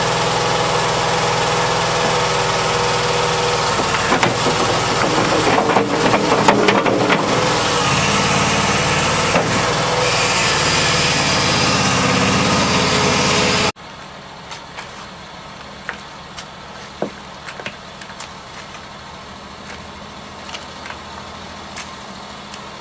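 A small engine running steadily, with scraping over it in the middle, stopping abruptly about 14 seconds in. After that, quieter scrapes and taps of compost being shovelled and spread over gravel.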